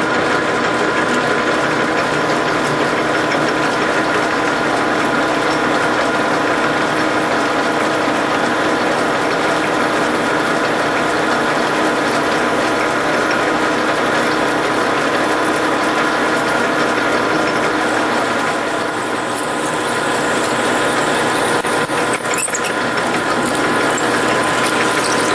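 A lathe running steadily while a freshly sharpened drill bit bores a hole into the spinning workpiece. The level dips briefly about two-thirds of the way through.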